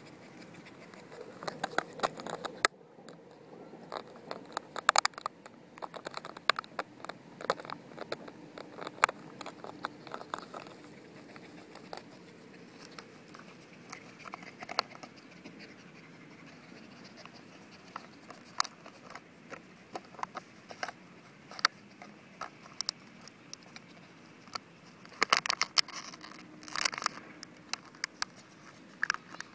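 Border Terrier chewing a crumpled plastic water bottle: irregular crackling and crinkling of the plastic under its teeth. The crackling is busiest in the first ten seconds or so and again near the end, with sparser crackles between.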